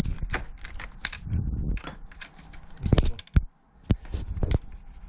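Irregular clicking and clattering of small hard parts being handled, a dozen or so sharp knocks with the loudest pair about three seconds in.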